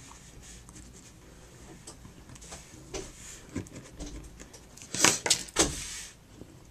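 Paper handling: faint taps and rubbing as a glue pen is worked over a small cardstock cutout, then a short burst of louder paper rustling and sliding about five seconds in.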